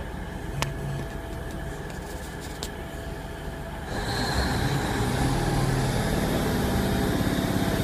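Underfloor Cummins diesel engine of a Class 150 Sprinter diesel multiple unit, heard from inside the carriage. It runs low and steady at first with a couple of faint clicks. About four seconds in it opens up and gets clearly louder as power is applied to pull away.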